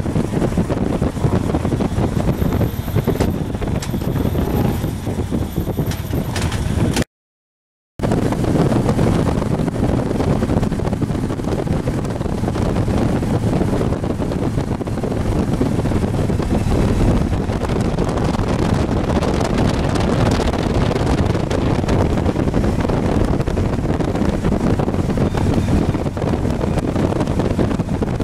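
Motorcycle riding at road speed: wind rushing over the microphone on top of engine and road noise. It is a steady, loud noise that cuts out completely for about a second near a quarter of the way in.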